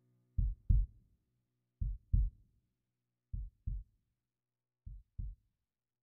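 Slow heartbeat sound, lub-dub: four pairs of low thumps about a second and a half apart, each pair fainter than the last, fading out.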